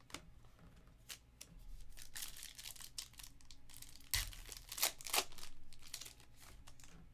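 A foil trading-card pack of 2021 Panini Prizm Football being torn open by hand, the wrapper crinkling and crackling in a run of sharp rips and rustles, loudest between about four and five seconds in.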